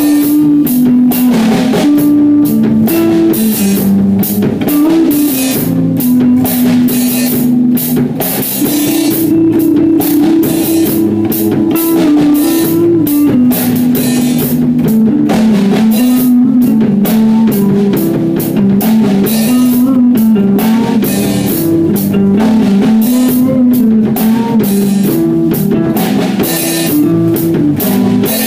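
Live instrumental rock jam: electric bass, electric guitar and drum kit playing together, the cymbals struck steadily over a sustained melodic line.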